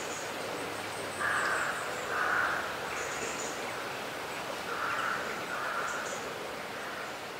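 Bird calls over steady outdoor background noise: four short, harsh calls in two pairs, the first pair a little over a second in and the second pair about five seconds in.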